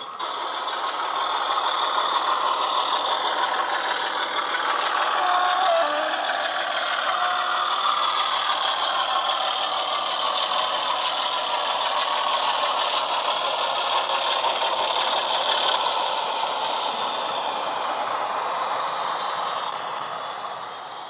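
Model Class 24 diesel locomotive's DCC sound decoder, a Loksound 5 loaded with a Class 25 sound file, playing a running Sulzer diesel engine through a small sugarcube speaker, mixed with the rattle of the model train running on its track. It grows louder about a second in as the train comes past and eases off near the end.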